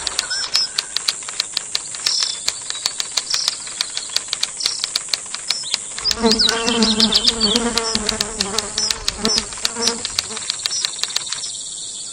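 Rainforest insects: a steady high-pitched shrill with many sharp clicks and short chirps, and a lower buzz for a few seconds from about six seconds in. The high shrill stops shortly before the end.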